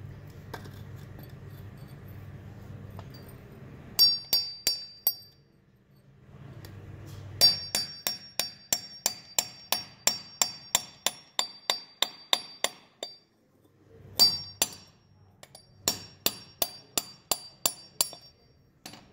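A claw hammer strikes a steel punch held against a cast aluminum piece, knocking the investment mold off the casting. It comes in runs of quick sharp metallic taps, about three a second, each with a short high ring, with brief pauses between runs. The first run starts about four seconds in.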